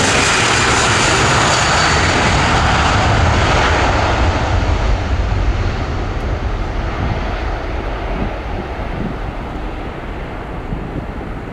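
Jet airliner's engines, loud at first, then fading steadily as the aircraft moves away. The high hiss dies off first, leaving a low rumble.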